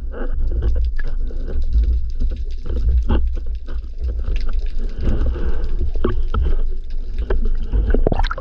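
Water sloshing and splashing over an action camera held at the sea surface: a heavy low rumble with scattered crackly clicks as the camera dips under and breaks the surface.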